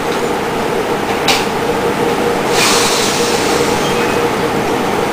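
Small lawnmower engine running steadily on 100% HHO (hydrogen-oxygen) gas, a fast, even rattle. A brief hiss comes a little over a second in, and a longer rushing hiss from about halfway through.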